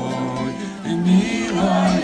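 A song sung in Russian to acoustic guitar accompaniment, the voices holding long notes between lines.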